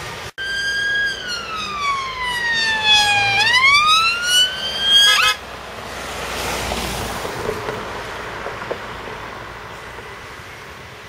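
Emergency-vehicle siren wailing: one slow fall and rise in pitch that ends in a few quick chirps and stops about five seconds in, followed by a vehicle driving past.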